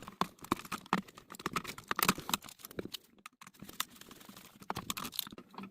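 Irregular small clicks and taps from handling a single-pole light switch and its wires.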